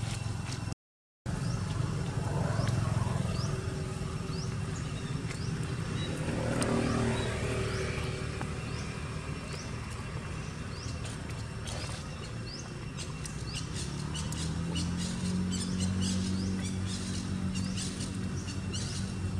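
A steady low motor-engine hum that rises in pitch about two thirds of the way through, with a bird repeating short upward chirps over it. A run of quick dry clicks comes near the end.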